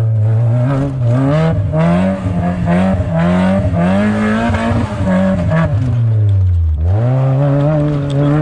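Mazda Miata's four-cylinder engine revving up and down repeatedly under off-road driving, its pitch rising and falling every second or so, with a deep drop about seven seconds in before it climbs again.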